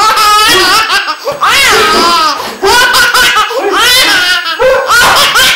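A toddler laughing hard, high-pitched belly laughs in several long bursts with short breaths between them.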